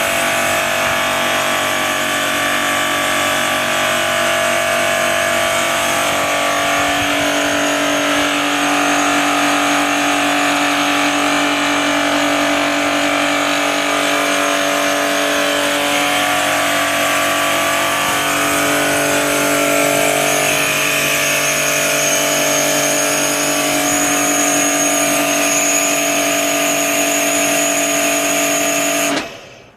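Kärcher pressure washer running steadily, a constant motor-and-pump hum over a hiss that cuts off suddenly near the end.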